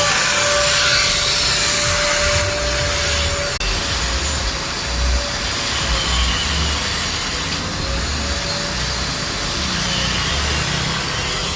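Angle grinder grinding steel, starting suddenly and then running on steadily, its motor whine wavering slightly as the disc is pressed into the work.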